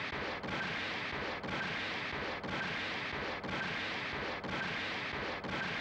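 Cartoon crash-and-rubble rumble effect of a body smashing into a rock wall: a steady, noisy rumble broken by a short dip about once a second, as if looped.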